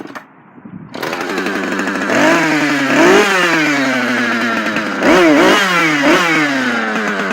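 Husqvarna 435 two-stroke chainsaw catching and starting about a second in, idling, then revved up several times, each time dropping back to idle.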